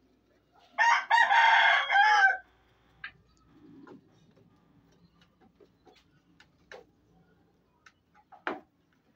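A rooster crowing once: a single call of about a second and a half that bends in pitch at its end. Faint, scattered clicks and knocks follow.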